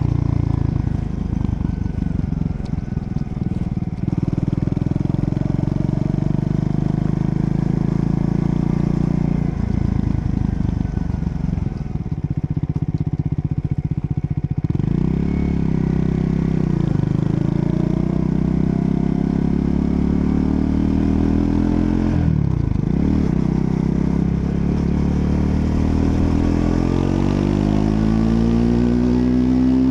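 Triumph Scrambler 400 X's single-cylinder engine under way. It runs steadily, eases off for a few seconds near the middle, shifts through gears, then revs climb steadily near the end as the bike accelerates.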